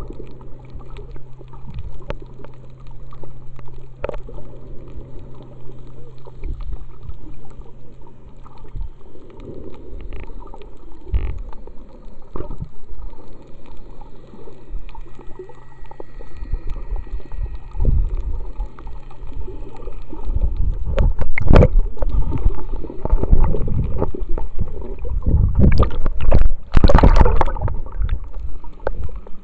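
Muffled underwater sound picked up inside an action camera's waterproof case, with a steady low hum and scattered knocks. About two-thirds of the way through it gives way to louder, irregular splashing and bubbling as the camera nears the water's surface.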